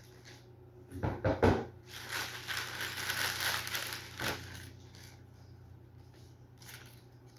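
Packaging being handled and crinkled: a few knocks about a second in, then about two seconds of crinkling and rustling that stops suddenly.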